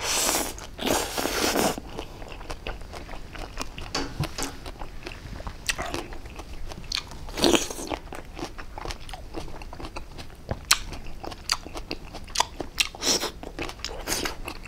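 Close-miked eating of a mouthful of oyster salad with fresh greens: wet crunching and chewing with many sharp mouth clicks, loudest in the first two seconds.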